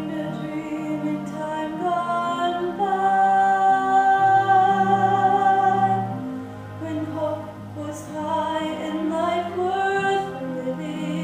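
Music: a woman singing a slow melody in long held notes over a soft sustained accompaniment. A long note in the middle is the loudest part.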